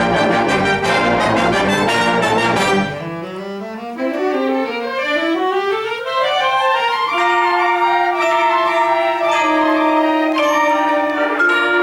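Youth concert band playing: the full band with percussion hits for about three seconds, then the low instruments drop out and several parts climb in rising runs together, settling into held brass chords about seven seconds in.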